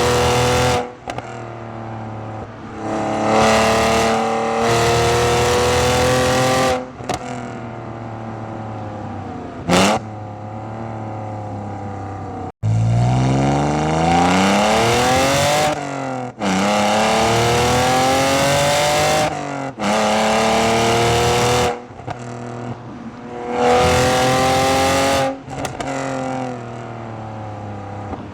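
BMW E46's exhaust recorded from right beside the tailpipe, very loud: the engine revs up again and again, its pitch climbing for a few seconds each time, then dropping back to a quieter, lower drone between pulls.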